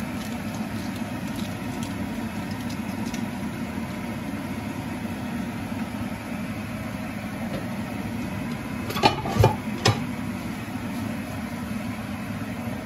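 Chicken pieces, onion and garlic cooking in a nonstick frying pan over a steady low hum. Three sharp knocks come about nine to ten seconds in.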